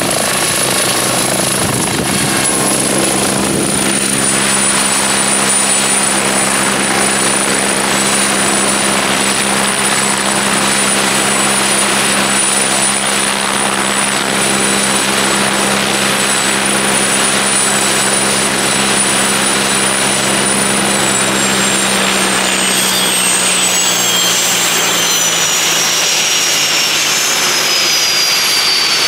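Westland Wasp helicopter's Nimbus turboshaft and rotor running steadily as it hovers and settles onto grass, with a high turbine whine over the rotor's drone. About twenty seconds in, the whine starts falling steadily in pitch and the rotor sound fades as power comes off after touchdown.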